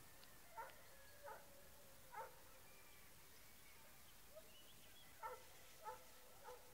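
Faint, distant barking from an animal: three short barks in the first two seconds or so, a pause, then three more near the end, over near silence.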